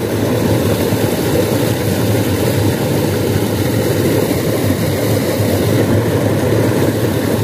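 Steady, loud rushing of water spilling over a small weir into a narrow irrigation ditch.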